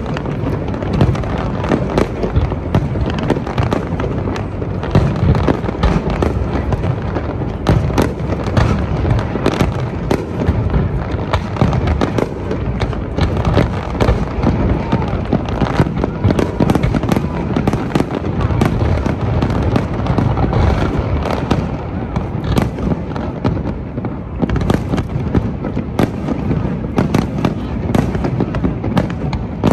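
Aerial fireworks display: a continuous barrage of many sharp bangs, one after another, over a dense low rumble.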